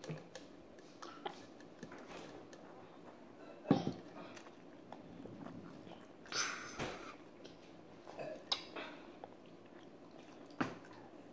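A child chewing instant noodles close to the microphone, with scattered small mouth and utensil clicks. A sharp knock comes about four seconds in, and a short burst of noise about six seconds in.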